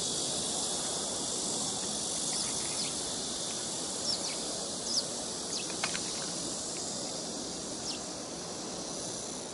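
Rural outdoor ambience: a steady high drone of insects, with a few short bird chirps around four, five and six seconds in, over a low steady hiss.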